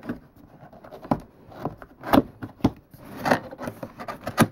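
Cardboard product box being handled and opened by hand: a run of short scrapes and rubs of cardboard as the tuck flap is worked loose, about half a dozen, the sharpest near the end.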